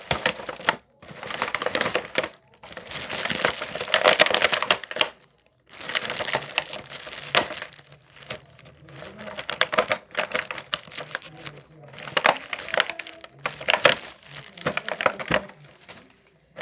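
Packaging being handled while a statue is unboxed: irregular bursts of crinkling, rustling and sharp clicks and knocks, with short pauses between.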